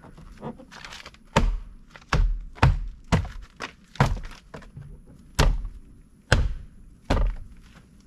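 A 1999 Jeep Grand Cherokee's door trim panel being slapped onto the door, about eight thumps spaced unevenly, pressing its new retaining clips into place.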